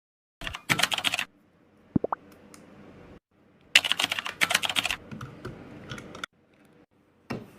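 Two flurries of rapid, sharp clicking, like fast typing, with scattered single clicks between them and a brief rising sweep about two seconds in.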